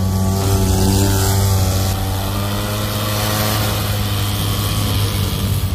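Side-by-side UTV engine running steadily while driving through deep snow, its drone wavering slightly in pitch.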